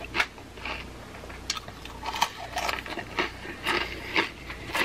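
Close-up chewing and crunching of Flamin' Hot Cheetos, with irregular crisp crackles. A hand rummages in the crinkly chip bag near the end.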